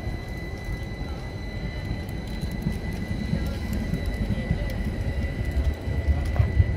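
City tram passing, a low rumble that grows louder toward the end.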